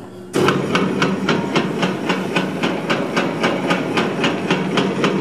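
Hobart MG2032 meat mixer grinder switched into mix-grind: about a third of a second in, the 7.5 horsepower grinding worm starts up alongside the running mixer. It runs as a steady, smooth, quiet motor and gear hum with an even ticking about five times a second.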